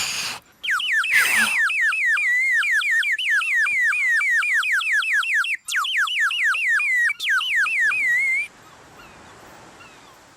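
A bird whistle blown to imitate a songbird: a fast, warbling trill of about four chirps a second. It breaks off briefly twice and stops suddenly near the end.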